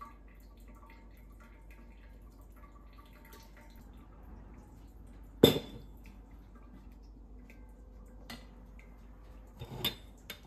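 Quiet room tone broken by a few sharp taps: a loud one about halfway through, a fainter one a little later, and a double tap near the end.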